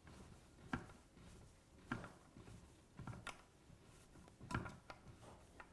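Faint metal clicks, about five of them roughly a second apart, as an Allen key and spanner are worked to tighten a handlebar bolt and its nylock nut.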